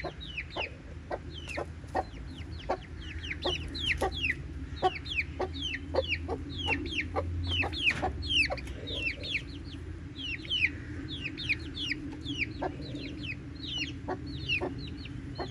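Young Sussex chickens peeping without pause: short, high, falling notes, several a second.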